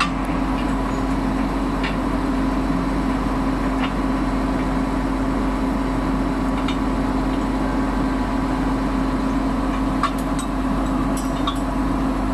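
Crane's diesel engine running steadily while a counterweight stack hangs on its chains, with a few light metallic clinks.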